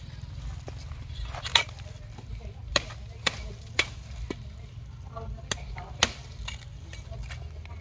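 Rotted coconut palm trunk being split and broken open to reach weevil larvae: about half a dozen sharp, irregular cracks and knocks over a steady low background hum.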